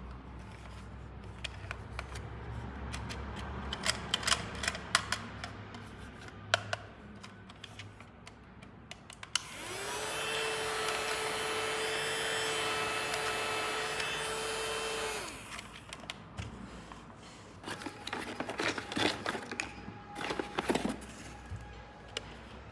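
Light clicks and taps of small pieces being handled. Then a small electric motor whirs steadily with one held hum for about six seconds, starting and stopping abruptly. More clicks follow.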